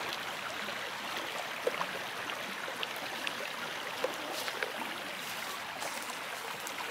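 Shallow river water flowing and trickling steadily, with a few faint ticks.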